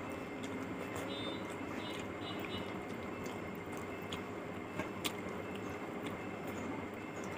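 Close-up eating sounds: rice and fish curry squished and mixed by hand, and chewing with small wet mouth clicks, over a steady background hiss. A sharper click comes about five seconds in.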